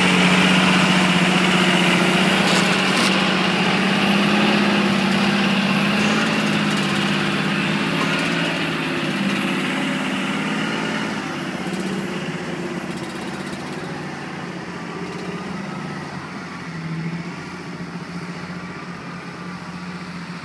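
A large John Deere tractor's diesel engine running steadily under load as it pulls a loaded land-levelling scraper, loud close by at first and fading gradually as it moves away.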